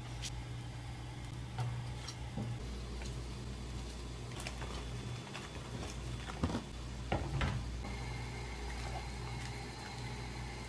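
Utensils clinking against a pan of simmering yukgaejang broth, then cut green onion pieces tipped from a plastic tray into the pan, with a few sharp knocks and soft thuds a little past halfway, and a metal ladle stirring. A steady low hum runs underneath.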